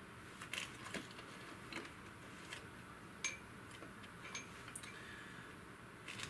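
Sparse light clicks and clinks of small metal parts and hand tools being handled, a few with a brief metallic ring.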